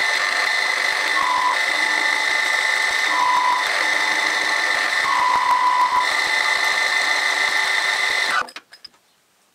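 Bench milling machine running, its end mill taking a clean-up cut across the bandsawn face of an aluminium block: a steady high whine that stops abruptly about eight seconds in.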